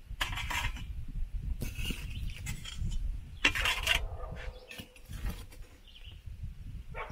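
Metal spatula scraping across the floor of a cob oven in several short strokes as burgers are lifted off it. The loudest scrape, about three and a half seconds in, is followed by a brief metallic ring from the metal baking tray.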